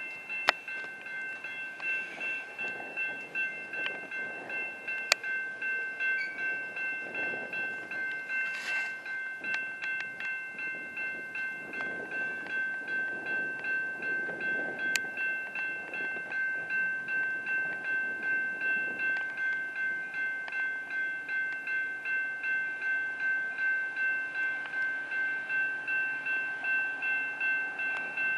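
Railroad grade-crossing warning bell ringing steadily at about two strokes a second, over the low rumble of an approaching commuter train.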